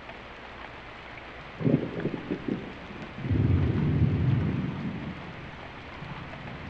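Steady rain with a thunderclap: sharp crackles about a second and a half in, then a long low rumble that swells and fades away over a couple of seconds.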